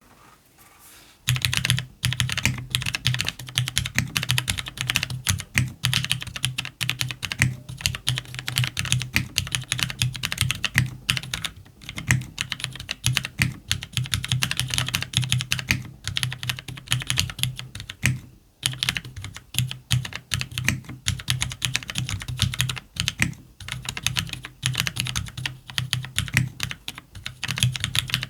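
Fast continuous typing on a CannonKeys Devastating TKL mechanical keyboard with linear Cherry MX Black switches on an FR4 plate, lubed stabilizers and JTK keycaps. It is a dense stream of keystroke clacks with a deep thock underneath. It starts about a second in and pauses briefly about two-thirds of the way through.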